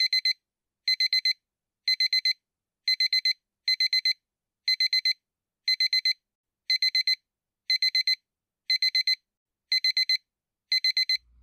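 Digital alarm clock beeping in quick groups of four, about one group a second, with a high electronic tone.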